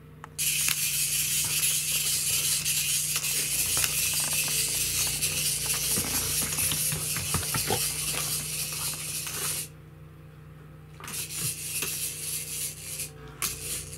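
Clockwork wind-up toy beetle running: its spring motor and gears whirring loudly, high-pitched, for about nine seconds and then stopping. After a short pause a second, shorter whirr follows, ending in a few clicks.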